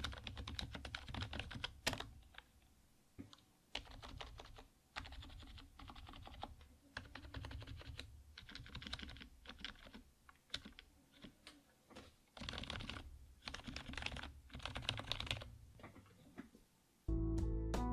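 Typing on an HP KU-1156 rubber-dome membrane keyboard modded with lube, in runs of quick key presses with short pauses between them. A few single louder key strikes stand out.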